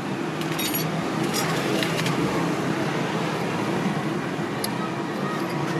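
Steady hum of road traffic with a few light clicks and knocks over it.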